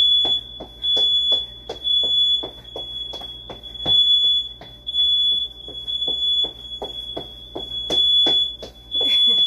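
House alarm sounding a continuous high-pitched tone with brief breaks about once a second. Under it, a quick regular run of short thumps, about three a second.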